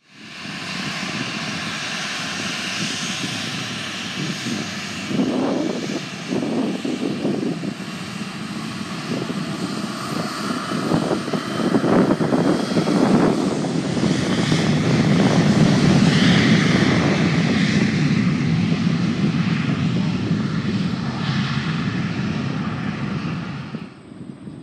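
Boeing 737 airliner's twin jet engines running at high power as it rolls down the runway, a steady rumble with a hiss on top that grows louder past the middle and then eases as the plane moves away.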